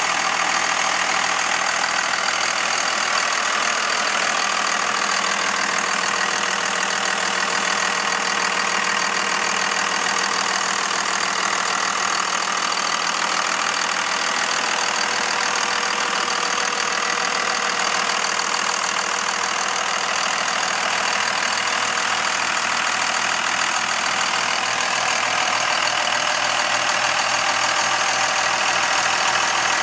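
Cummins 5.9-litre turbo-diesel straight-six of a 1999 Dodge Ram 3500 idling steadily, hood open.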